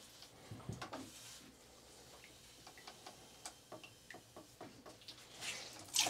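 Faint, irregular ticks and drips as a wet rag cools a freshly soldered brass washer valve, with a short rush of noise near the end.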